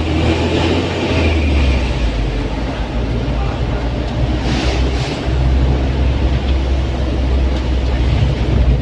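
Isuzu Elf minibus driving, heard from inside: a steady low engine and road rumble, with a brief hiss about four and a half seconds in.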